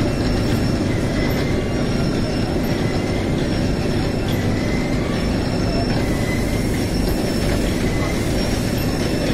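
Belt-conveyor truck loaders running steadily under load, with a continuous motor hum and rumble of belts and rollers, and a faint high squeak repeating about once a second.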